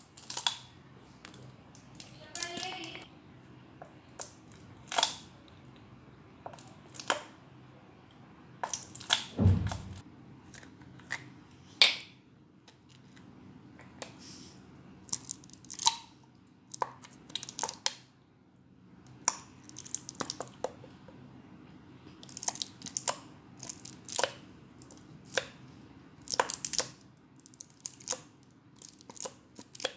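Small handling noises while adding glue for slime: scattered clicks, taps and knocks of glue bottles and a bowl being handled, with one heavier thump about nine seconds in.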